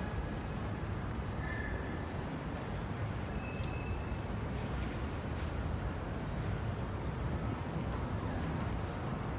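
City street ambience: a steady low rumble of traffic, with a few short high chirps.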